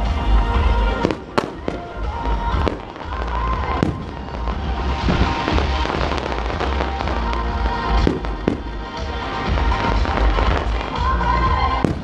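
Fireworks display: a rapid series of sharp bangs and bursts, with denser crackling in the second half, over music playing.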